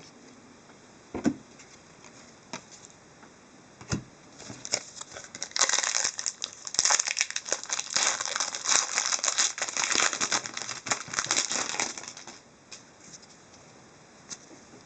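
Crinkling and tearing of a trading-card pack's plastic wrapper as it is opened, with a few sharp clicks at first and dense crinkling from about five seconds in to about twelve.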